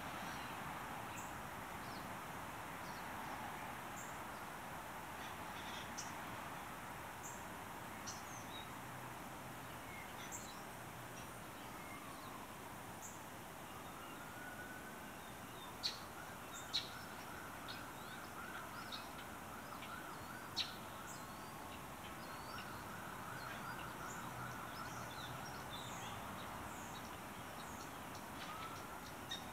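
Scattered short, high bird chips and call notes over a steady background hum, a few sharper chips louder than the rest in the middle. A distant siren rises about halfway through and wavers on for most of the rest.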